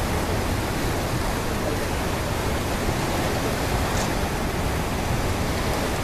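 Steady rush of wind and open sea heard from the deck of a ship under way.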